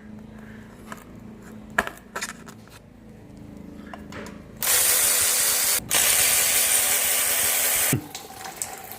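Ratchet clicking and tool clicks on the transmission strainer bolts, then about three seconds of loud steady hissing from a tool, broken once very briefly.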